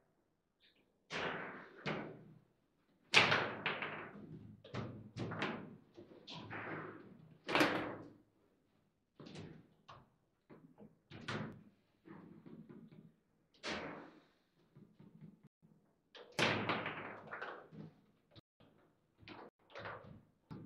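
Table football game in play: irregular sharp clacks and bangs as the ball is struck by the plastic player figures and cracks off the table, with rods knocking. The loudest shots come a few seconds in and again later on.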